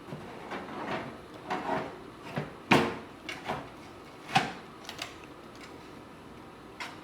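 Hardware being handled while a PC power supply is fitted: rustling, then a few sharp knocks and clicks. The loudest knock comes a little under three seconds in, another about four and a half seconds in, and lighter clicks follow.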